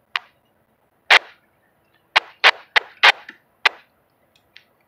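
A series of about seven sharp clicks or knocks at uneven spacing, with a quicker run of four near the middle.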